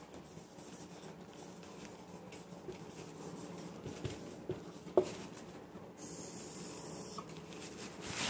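Marker pen writing on a whiteboard: faint strokes and small taps, with one sharper tap about five seconds in.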